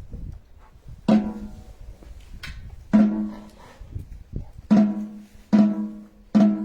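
Marching-band drum struck five times in a slow, uneven beat, each stroke ringing briefly.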